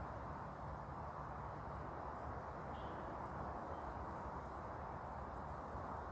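Steady rush of water from a stream or waterfall in a gorge, with a faint bird chirp twice in the middle.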